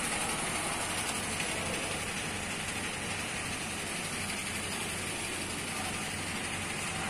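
Toyota Grand Innova's engine idling steadily, a low, even running sound with no revving.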